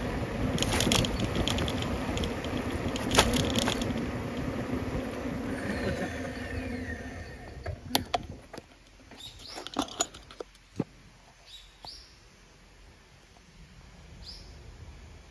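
A small vehicle riding along a road, with a steady hum and rolling noise and sharp rattles over bumps, fading out as it slows and stops about seven seconds in. A run of clicks and knocks follows, then a quieter stretch with a few short bird chirps.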